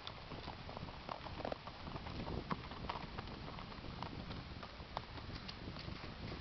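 Hoofbeats of a Tennessee Walking horse moving along, a run of short clip-clop footfalls, several a second, over a steady low background noise.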